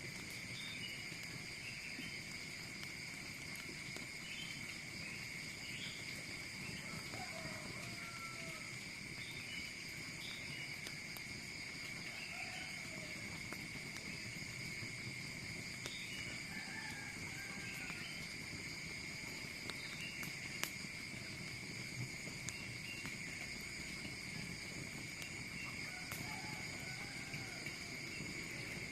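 Insect chorus: a steady, unbroken high trilling at several pitches, with short chirping calls scattered through it and a few faint sharp clicks.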